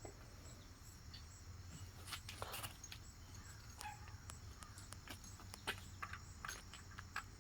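Faint, steady chirping of crickets, with scattered light clicks and taps on top.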